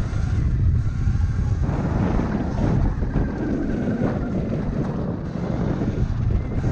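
Wind rushing over the microphone, with a steady low rumble, while a Sur-Ron electric dirt bike is ridden along a trail.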